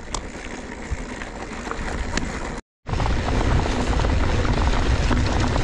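Mountain bike riding downhill on a dirt track: tyres rumbling over loose stones with a few sharp clicks, and wind buffeting the microphone. The sound drops out for an instant about two and a half seconds in, then returns louder and heavier.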